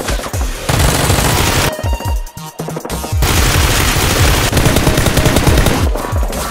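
Rapid automatic gunfire over background music, in two long bursts: a short one about a second in, then a longer one from about three seconds in.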